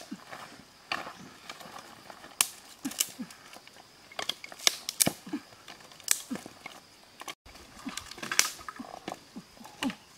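Dry sticks snapping and clattering as they are broken and laid down, with a small blade chopping at a stick: an irregular string of sharp cracks and knocks.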